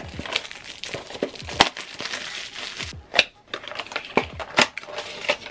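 Plastic wrapping crinkling and tearing off a small cardboard Oh My Gif mystery box, with sharp crackles and clicks as the box is handled and its lid is folded open.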